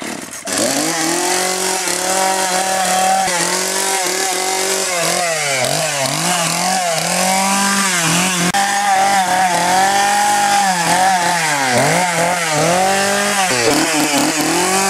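Chainsaw engine starts up about half a second in and runs loudly, revved up and down over and over so its pitch keeps dipping and climbing.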